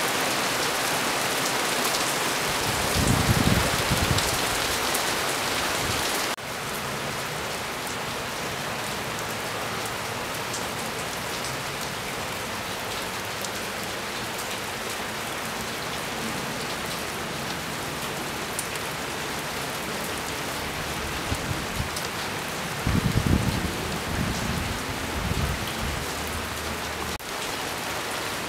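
Heavy rain pouring down through pine trees, a steady dense hiss that drops a little in level about six seconds in. Brief low rumbles come in twice, near the start and again after about twenty-three seconds.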